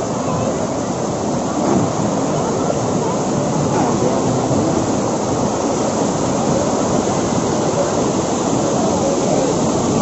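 Waterfall rapids: river water rushing and crashing over rocks in a steady, loud, unbroken rush.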